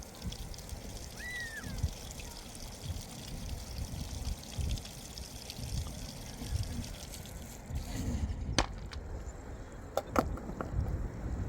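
Water pouring or trickling, cutting off about eight seconds in, followed by a few sharp knocks.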